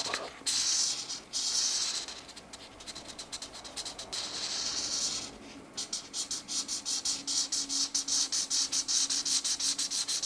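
Felt-tip marker tips scratching across colouring-book paper: a few long strokes first, then from about halfway on quick back-and-forth scribbling strokes, several a second, as an area is filled in.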